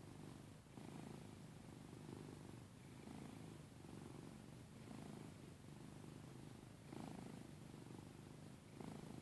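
Domestic cat snoring quietly: a low rasp that swells and eases about once a second with its breathing in and out.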